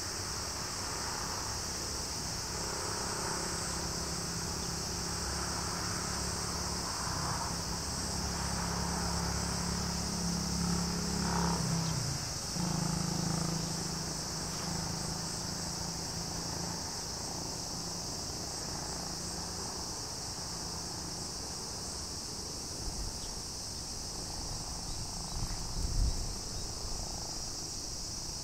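Steady high-pitched insect chorus, a continuous buzz, over a low engine hum that swells about ten to twelve seconds in and then fades away, with a low thump near the end.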